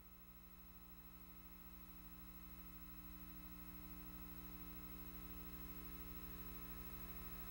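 Faint steady hum of several held tones, slowly growing louder.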